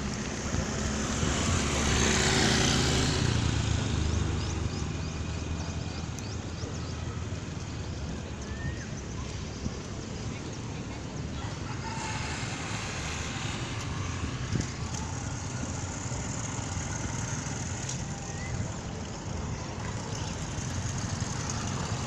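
Seashore ambience: wind rumbling on the microphone over a steady wash of surf, with one louder wave surge about two seconds in.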